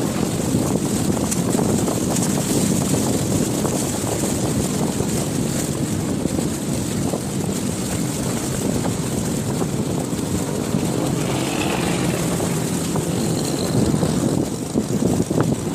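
Steady rushing, rumbling noise of wind and rain on the microphone while cycling downhill, with fine crackling throughout.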